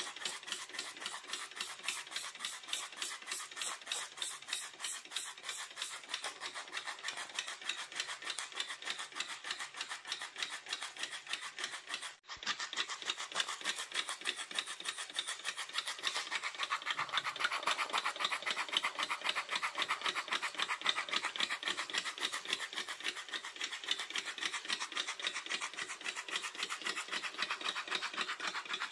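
Miniature live-steam walking-beam engine running fast, its cylinder exhaust and linkage giving a rapid, even chuffing clatter. It cuts out for a moment about twelve seconds in and comes back a little louder a few seconds later.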